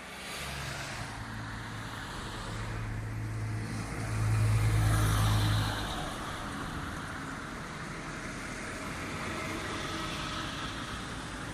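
Motor vehicle engine running close by over road noise, a steady low hum that grows loudest about four seconds in and eases off near the six-second mark.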